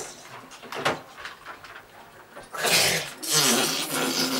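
Small splashes and light clinks of a glass and plastic toys in shallow bath water, then about two and a half seconds in a louder splash of water and a toddler's wordless babbling.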